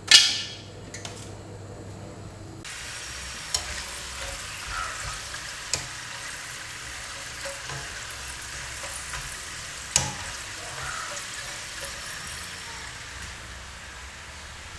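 Semolina snack pieces deep-frying in hot oil, a steady sizzle that starts about three seconds in. A sharp noise comes at the very start, and a few sharp clicks sound over the sizzle.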